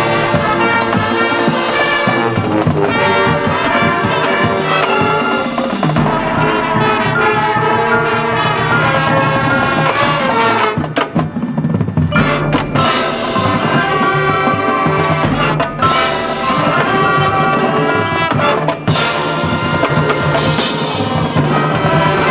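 Marching band playing full brass with drums and percussion, with brief breaks in the music about halfway through and again near the end.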